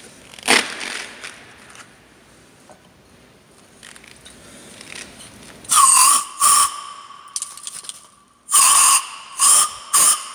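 Aerosol carb and choke cleaner sprayed through a straw nozzle in several short bursts of hiss with a thin whistle. Most of the bursts come in the second half. The spray is going into a removed EGR valve to wash out its carbon deposits.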